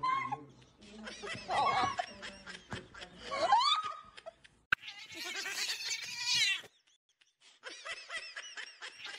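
Laughter in several bouts of high giggling, with a short pause about seven seconds in.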